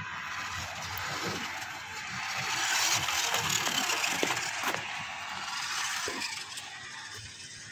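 WPL D12 1/10-scale RC mini truck's brushed electric motor and gear drive running as it drives on concrete, a whirring, rattly mechanical noise that grows louder about two and a half seconds in and eases off after about five seconds.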